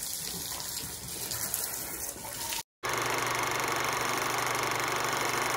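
Water from a hand-held garden hose spraying onto a motorcycle, cut off abruptly a little over two and a half seconds in. After a brief gap, a louder, very steady whirring hiss with a fast fine flutter.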